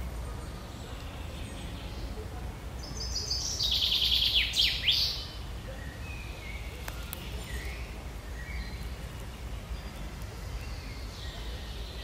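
Forest songbirds: one bird sings a loud, quick phrase of rapid notes sweeping downward about three to five seconds in, with fainter chirps from other birds scattered through the rest. A steady low rumble lies underneath.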